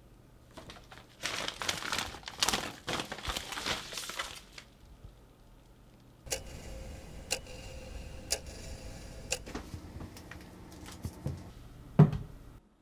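Sheet of paper rustling and crinkling as it is handled, for about four seconds. Then a sharp tick about once a second over a steady hiss for about three seconds, and a single loud low thud near the end.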